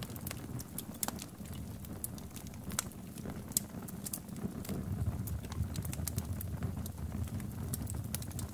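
Small fire burning on the melted plastic remains of a mini fan, with irregular sharp crackles and pops over a low steady noise of the flame.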